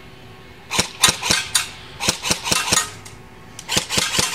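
Matrix AGM STG-44 airsoft rifle firing three quick strings of sharp snapping shots, a few shots in each string.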